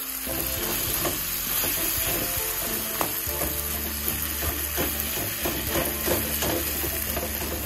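Onions, tomatoes and green chillies frying in a steel kadai with crumbled leftover ghee solids, sizzling while a metal spatula stirs and scrapes against the pan.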